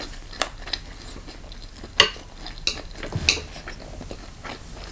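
Metal chopsticks clicking against a bowl while picking up chicken feet: a few light, separate clinks, the loudest about two seconds in.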